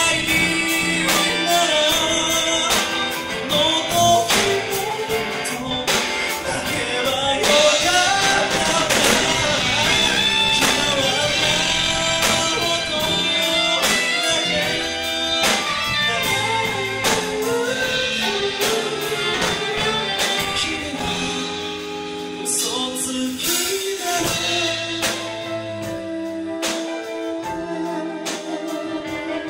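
Live band with a male singer, electric guitar, electric bass, drum kit and saxophone performing a song.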